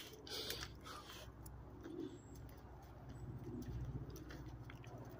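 Faint footsteps crunching on the gravel ballast of a railway track, irregular light crunches over a low rumble.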